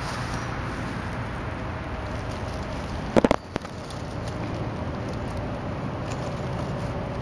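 Steady outdoor background noise, broken about three seconds in by a brief cluster of loud knocks, with a faint steady hum in the second half.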